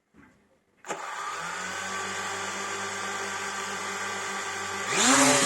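Quadcopter drone's motors and propellers buzzing. The buzz starts abruptly about a second in after a near-silent gap and holds steady with several steady tones, then grows louder with its pitch rising near the end.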